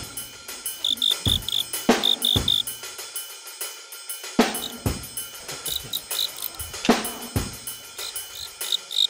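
Percussion music with heavy drum hits, often in pairs about half a second apart. Over it a cricket chirps in short, quick groups of high pulses.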